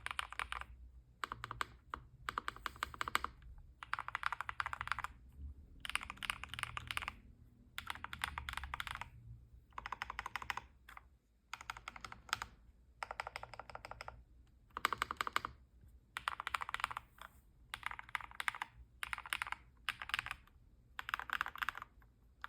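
Freshly built custom mechanical keyboard, with foam laid over its circuit board for a poppier sound, being typed on as a sound test: runs of rapid keystroke clacks about a second long, separated by short pauses.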